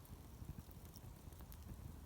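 Wood campfire burning quietly: a few faint, sharp crackles over a low, steady rumble.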